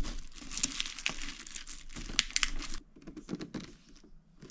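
Cardboard box of a collectible figure being handled and turned over: a run of rustles and scrapes for about the first three seconds, then a few faint clicks.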